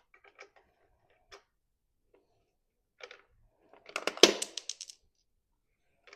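Hand tools and small metal parts clicking and knocking while a lawn mower is worked on, with a quick run of about ten sharp clicks a second lasting about a second, near the end, the loudest sound.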